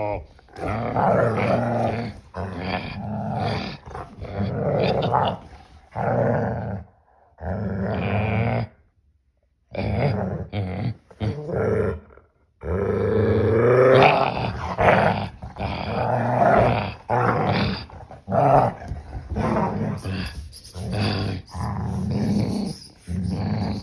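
Doberman growling in repeated bursts while mouthing and tugging at a shoe on a person's foot, with one pause of about a second partway through.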